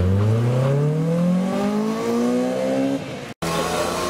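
Honda Integra Type R's high-revving four-cylinder engine accelerating hard away, its note rising steadily in pitch for about three seconds before easing off. After a momentary gap, a Porsche 911's flat-six drives past with a steadier, slowly rising note.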